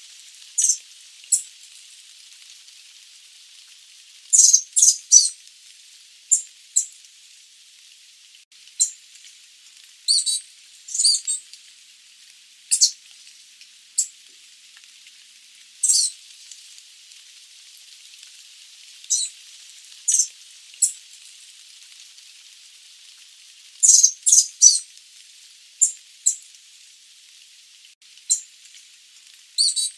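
Sooty babbler giving short, high-pitched calls, sometimes single and sometimes in quick runs of two or three, every second or two over a steady hiss.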